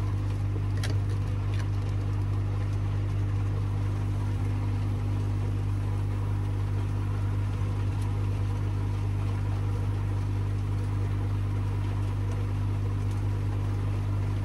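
Steady low electrical hum of running pond equipment in the filter shed, with a couple of faint clicks of plastic pipe fittings being handled about a second in.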